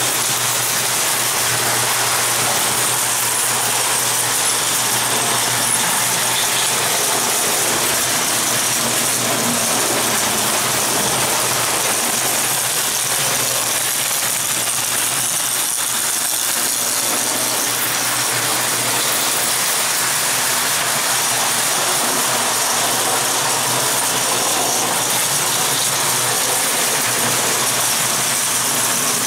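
Prewar Lionel O-gauge tinplate trains running steadily around three-rail track: the continuous mechanical noise of their motors and wheels on the rails, with a steady low hum beneath.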